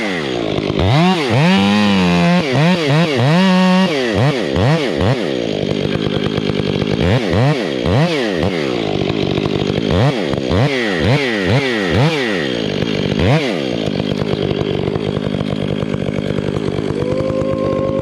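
Chainsaw cutting a chunk of pin oak, its engine pitch dropping and climbing again over and over as the chain bites into the wood and frees up, then running steadier and lower. A brief steady whine near the end.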